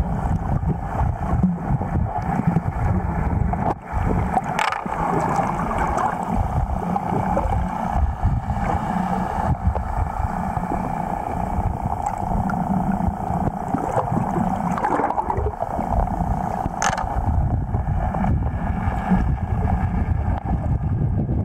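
Underwater sound picked up by a camera below the surface: a steady low rumble and water noise, with a steadier band of hum through it and two sharp clicks, one about five seconds in and one near the end.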